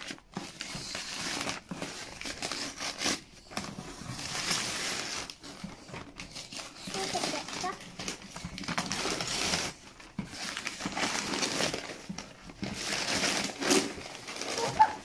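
Brown kraft wrapping paper being crumpled and torn off a cardboard gift box, rustling in irregular bursts with short pauses between them.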